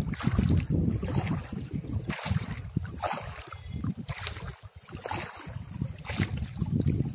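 Water splashing and dripping about once a second as a cast net is hauled in hand over hand through shallow river water, over a steady buffeting of wind on the microphone.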